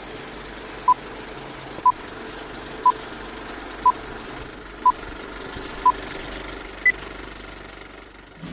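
Vintage film countdown-leader sound effect: a steady film-projector clatter with a short beep once a second, six at the same pitch, then a seventh beep an octave higher.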